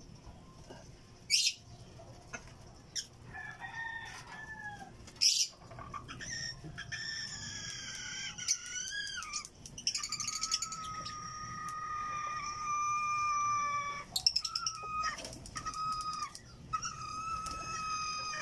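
Roosters crowing several times, one long drawn-out crow held steady in the middle, with two sharp clicks in the first few seconds.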